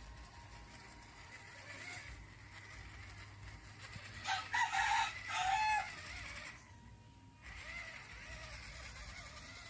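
A rooster crowing once, a loud pitched call of about a second and a half starting about four seconds in.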